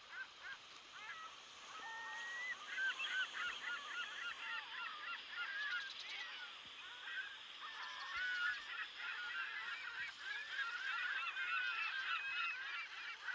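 A flock of birds calling at once: many short, overlapping honking calls, moderately faint, keeping up throughout.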